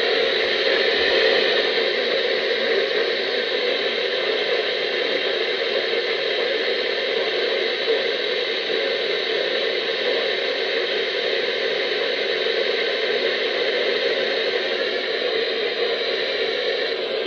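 Steady hiss of radio static from a radio receiver, even and unbroken, with no tone or voice coming through.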